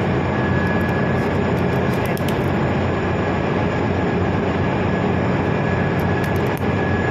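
Loud, steady drone of a ship's engine-room machinery, with a constant high whine running over the low rumble.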